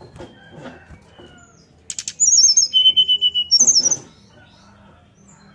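Brown-chested jungle flycatcher (sikatan rimba dada coklat) singing one loud fluting phrase about two seconds in: a high warbling trill, a run of quick even notes on one pitch, then another high warble. A few short clicks come just before the song.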